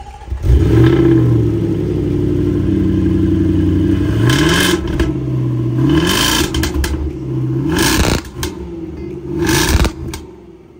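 Land Rover Defender 110 engine through an Overfinch aftermarket exhaust system: it starts with a sudden flare about half a second in, settles to idle, then is revved about four times, each blip rising in pitch and dropping back.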